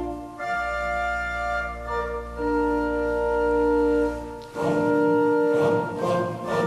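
Music of sustained, organ-like held chords that change every second or two, turning fuller and busier about four and a half seconds in.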